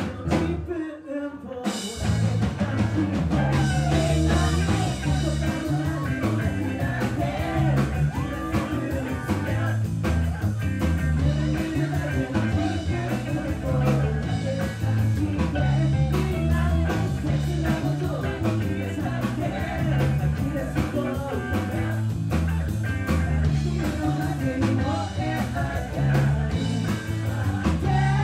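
Live rock band playing with a male lead singer, electric bass and drums. After a short break, the full band comes in about two seconds in.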